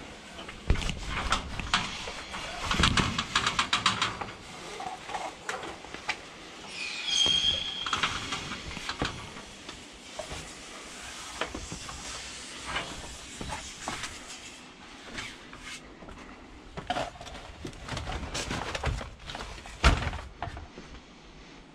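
Metal ratchet-strap buckles and strap webbing rattling and clicking as the straps are worked, with knocks and footsteps on the crated load. There is a short high squeal that falls in pitch about seven seconds in, and a heavy thump near the end.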